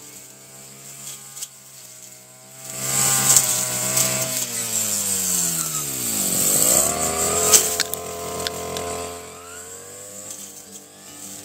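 Brush cutter engine running as its cutting head clears grass and weeds. About three seconds in it gets loud, its pitch sags for a few seconds and then climbs quickly, and near the end it settles back to a lower, quieter run.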